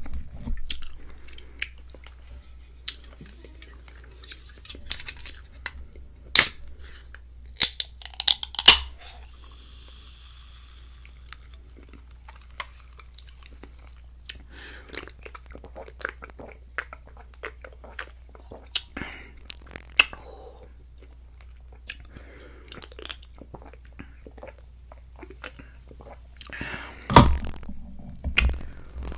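Close-up mouth sounds of someone chewing creamy chicken and shrimp alfredo pasta, with wet smacks and clicks. About nine seconds in there is a sharp crack followed by a couple of seconds of hissing fizz, as a soda can is opened. Sips and swallows from the can follow.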